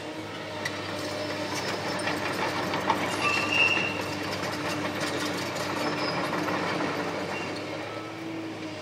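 Tracked excavators' diesel engines running steadily while a hydraulic demolition shear crunches through the concrete canopy, with rubble clattering and scattered sharp clicks. A brief high metallic squeal comes a little after three seconds in, where the sound is loudest.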